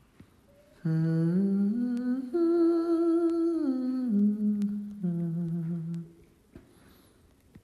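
A man humming a short wordless melody in long held notes for about five seconds, stepping up in pitch and then back down.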